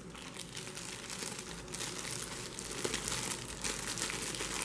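Thin clear plastic bag crinkling and rustling as it is handled, with a wall charger inside it. The sound grows a little louder after the first second.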